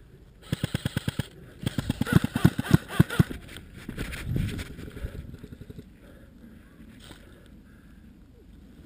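Airsoft electric gun firing two rapid full-auto bursts in the first three seconds, a fast string of sharp clicks. Softer rustling of movement through brush follows.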